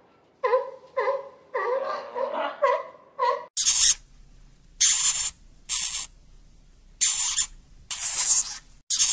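A run of short, wavering, bleat-like calls from a sea lion. About three and a half seconds in, these give way to a hamster eating: bursts of crisp crackling, each about half a second long, roughly once a second.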